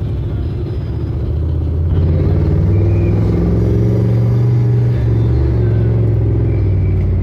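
Low, steady engine rumble, growing louder about two seconds in.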